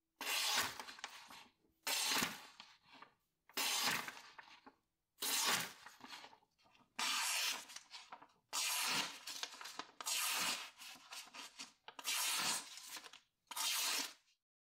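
A sharpened stainless-steel knife blade (440B) slicing through a sheet of paper in about nine separate strokes, each a crisp papery swish of about a second. It is a paper-cutting test of the edge's sharpness.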